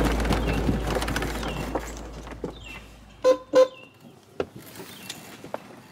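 A fading noisy background with a low hum, then two quick toots of a horn about a third of a second apart, a little past halfway, followed by a few light clicks.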